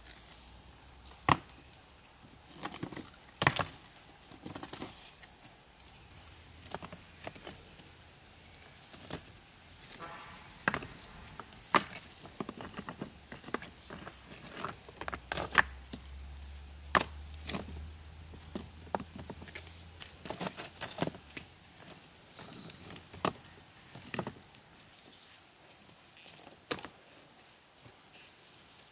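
Wood being worked: irregular sharp knocks and cracks, a few a second at the busiest, over a steady high insect chirring.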